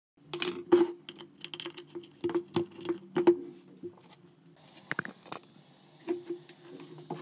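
Hands handling a small plywood box: a quick run of sharp clicks and light knocks, busiest in the first three seconds, with a couple more about five seconds in, over a low steady hum.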